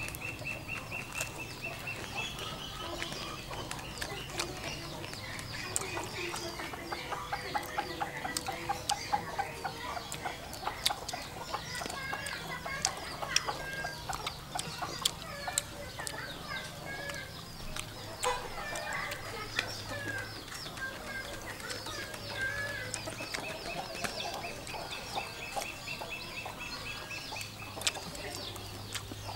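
Domestic chickens clucking, with other birds calling and many scattered light clicks.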